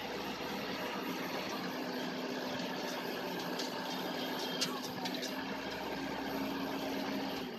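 Rice combine harvester's engine running steadily while the machine is bogged in deep paddy mud and cannot drive out. Its steady low note breaks off shortly before the end.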